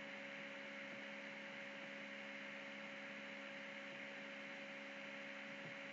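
Faint steady hiss with a low electrical hum: the recording's own background noise, with no other sound.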